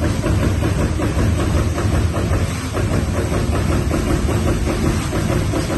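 TRUMPF TruPunch 5000 CNC turret punch press punching sheet metal in rapid, evenly spaced strokes, a steady rattle of hits over a low machine hum.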